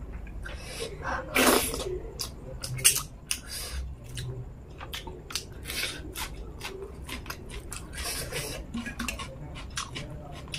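Close-miked hand-eating of dhido with fish head curry: fingers squishing food in a steel bowl, then wet mouth smacking and chewing with many short, sharp clicks and a louder noisy burst about a second and a half in.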